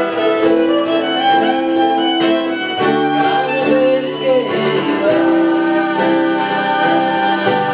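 Live acoustic music: a violin playing long held notes over Spanish guitar and ukulele, with a voice singing along.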